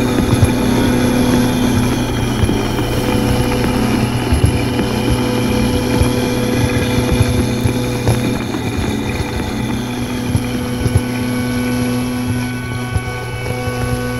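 Experimental electronic soundtrack: layered steady drone tones over a low, fluttering rumble, with a high tone that slowly wavers up and down.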